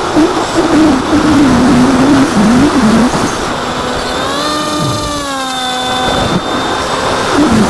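Electric motor and propeller of an AXN foam RC plane, heard from the onboard camera with heavy wind rush over the microphone. The motor's whine wavers in pitch as the throttle changes; around the middle the wind thins and a steadier motor tone comes through, dropping slightly and stopping about six seconds in, then the wavering whine returns near the end.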